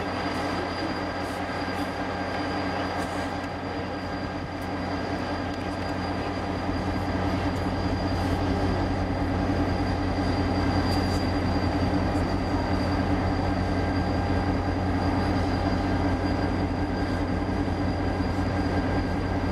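Steady mechanical hum of a Talgo passenger train heard up close: a constant low drone with several unchanging tones and a faint high whine, with no wheel clicks or rhythm.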